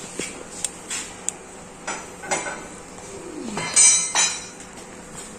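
Metal motorcycle stand clinking and clanking against the floor and frame as it is set under a dirt bike: a string of sharp metallic clicks, with two louder clanks about four seconds in.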